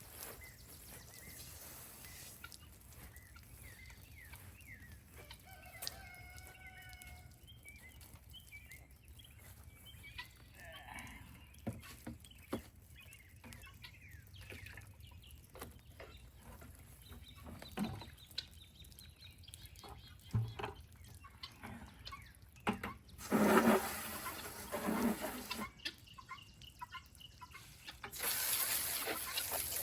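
Chickens clucking, with a rooster crowing once about six seconds in. Near the end come two louder bursts of water hissing from a hose.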